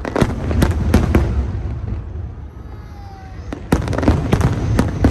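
Aerial fireworks shells bursting: a quick run of sharp bangs in the first second or so, a short lull with a low rumble, then another run of bangs from about three and a half seconds in.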